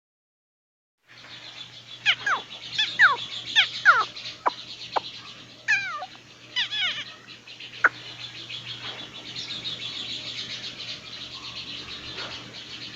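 Chorus of many birds: after about a second of silence, a steady high twittering starts, with a run of loud descending calls between about two and seven seconds in.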